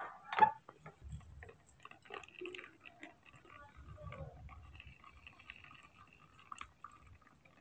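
A short knock about half a second in, then faint drips and small ticks as orange juice runs from a lever-type manual citrus press into a plastic tub.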